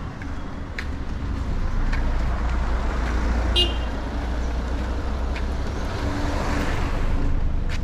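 A motor vehicle passing on a narrow street, its low engine rumble swelling and easing, with a short high-pitched beep about three and a half seconds in. Faint regular footstep ticks run underneath.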